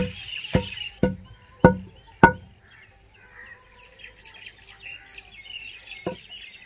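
Long wooden pestle pounding dried red chillies in a stone mortar: five heavy thuds about two a second, then the pounding stops. Birds chirp after it, and there is one more knock near the end.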